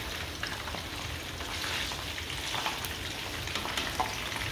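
Battered chicken pieces frying in hot oil in a pan: a steady sizzle with scattered small crackles.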